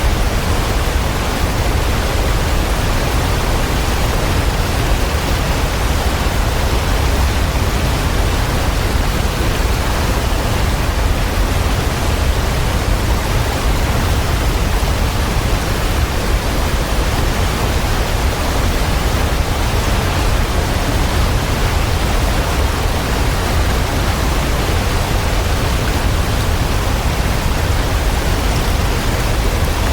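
Waterfall: a steady, loud rush of falling water, deepest at the bottom, with no changes or separate events.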